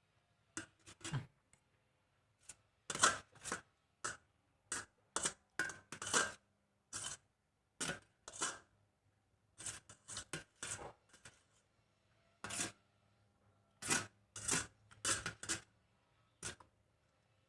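Close-up eating of white noodles: an irregular run of short, sharp mouth clicks and smacks from chewing, a few each second with brief pauses.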